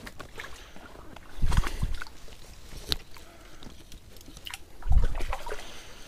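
Boots wading through a shallow stream: two heavy sloshing steps, about a second and a half in and again near the end, over a faint trickle of flowing water, with a few sharp clicks between them.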